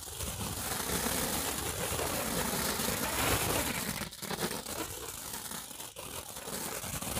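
Hand-held 'King Candle' fountain fireworks spraying sparks with a steady hiss, dipping briefly twice in the second half.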